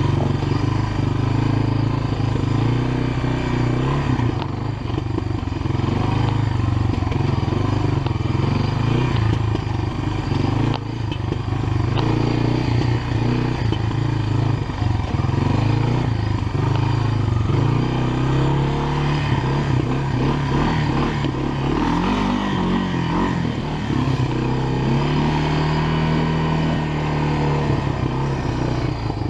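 Honda FourTrax ATV engine running steadily as the quad is ridden along a trail. The pitch shifts with the throttle and rises for a few seconds about two-thirds of the way in.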